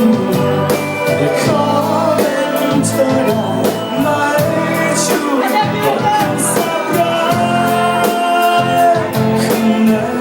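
Thai pop song with a steady drum beat and a melody that glides in pitch; this passage has no sung lyrics.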